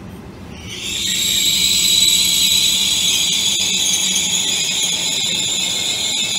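Steady, loud, high-pitched wheel squeal from a Trenitalia Rock double-deck electric train moving on curved track, starting under a second in and holding one unchanging screech.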